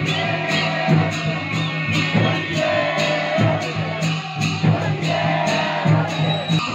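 Music with a steady beat of about three strokes a second over sustained low notes, with held melody notes above.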